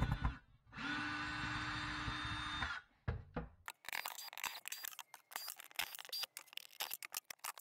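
Cordless drill running steadily for about two seconds, backing a screw out of a wooden shelf cleat, then slowing as it stops. A string of quick clicks and light rattles follows.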